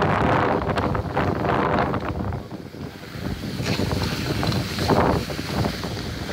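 Wind noise buffeting the microphone of a moving skier, mixed with the rushing hiss and scrape of skis sliding over packed, groomed snow. It eases for a moment about halfway through, then picks up again.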